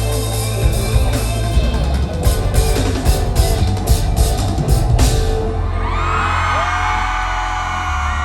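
Live pop-rock band playing the end of a song: loud drum and cymbal hits until about five seconds in, then one long high note held over a steady low bass.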